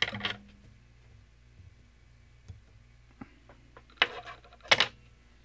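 Fly-tying tools and materials being handled at the bench: a short clatter at the start, a few light clicks, then two sharp clatters about four seconds in, over a faint steady hum.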